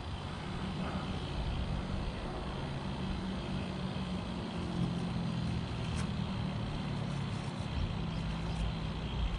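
Steady low engine hum with a faint tick now and then, likely leaves being handled.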